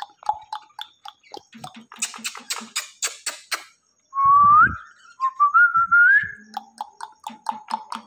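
Indian ringneck parrot whistling and clicking: a run of quick sharp clicks, then two rising whistles about halfway through, the second one wavering as it climbs, then more soft clicks.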